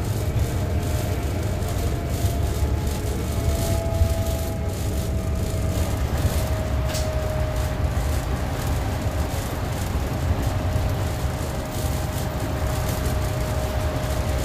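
Inside a city bus cruising at expressway speed: a steady low rumble of engine and tyres on the wet road, with a faint steady whine.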